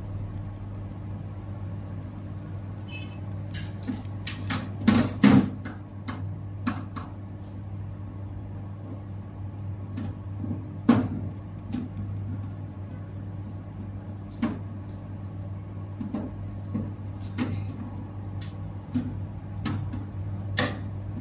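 Scattered sharp clicks and knocks of a hard drive and small tools being handled, loudest about four to five seconds in, over a steady low hum.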